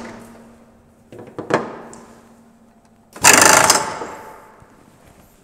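Metal knocks as a tool is handled at the mill, then about three seconds in a short, loud blast of air as the mill's power drawbar is worked at the top of the spindle head to release the tool from the spindle.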